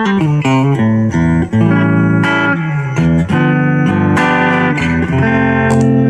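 AIERSI ST11 Stratocaster-style electric guitar being played: a quick run of single notes and short chords, then a chord left to ring from about five seconds in.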